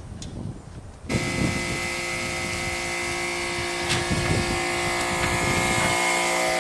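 A small engine runs steadily at a constant pitch, with a hiss over it. It comes in abruptly about a second in, and its lowest note shifts near the end.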